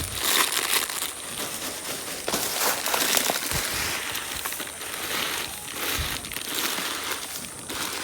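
Plastic snack packets crinkling and being crushed by hand, a continuous dry crackle with a few soft thumps, as a chatpate snack mix is put together.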